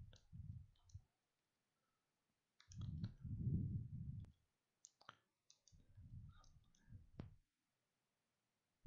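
Faint scattered clicks, with three stretches of low, muffled rumble in between.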